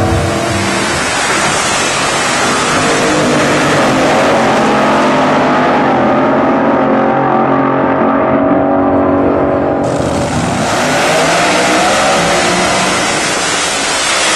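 Drag racing cars' engines running loud at full throttle down the strip, their pitch rising and shifting through the revs. About ten seconds in, the sound changes abruptly to another run.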